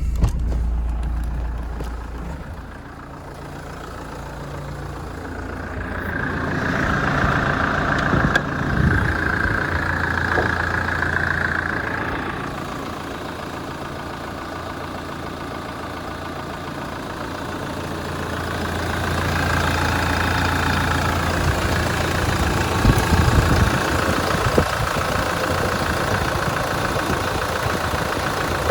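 Hyundai Terracan engine idling steadily; it grows louder and quieter in turns. The owner judges the engine sound perfect, nothing to worry about.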